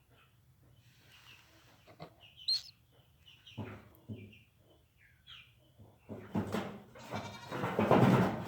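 Two-day-old killdeer chick giving short, high peeps several times while being hand-fed. A louder, coarse, noisy sound builds over the last two seconds.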